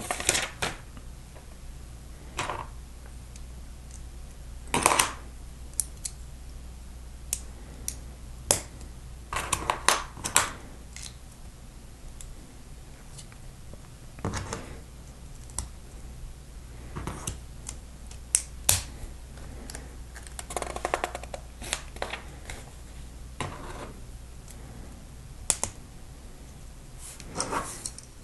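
Plastic LEGO plates and bricks being handled and snapped together: irregular sharp clicks and short clattery bursts, over a low steady hum.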